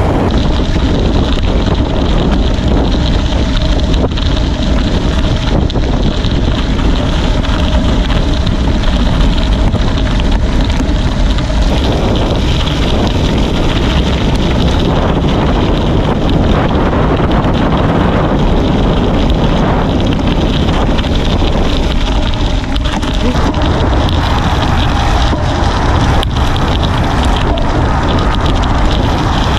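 Loud, steady wind rushing over the microphone of a camera on a moving bicycle, with a low rumble underneath.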